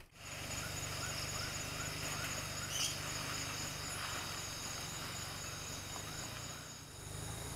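Evening insects trilling steadily in high, thin tones, with a run of short rising chirps about two or three a second in the first half. A low steady hum lies underneath.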